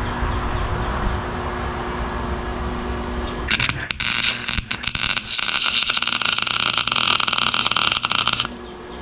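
A steady hum, then about three and a half seconds in an electric welding arc strikes and crackles for about five seconds before cutting off sharply. The weld is fixing a steel nut inside a ball joint collar.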